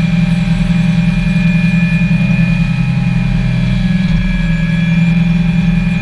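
Parker 750 Baltic RIB's engine running steadily at cruising speed: a loud, even drone with a faint high whine above it.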